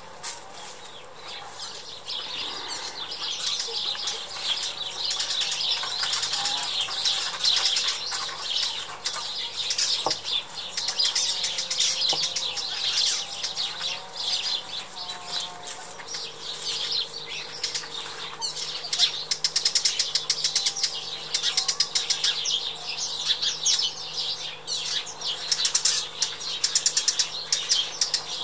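Many small birds chirping and chattering at once in a dense, continuous twitter.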